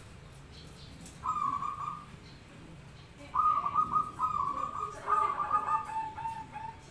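Zebra doves (perkutut) cooing: phrases of quick, stuttering coos, one after about a second, then a longer run from about three seconds in. Near the end a second bird's slightly lower coo overlaps, as the two answer each other.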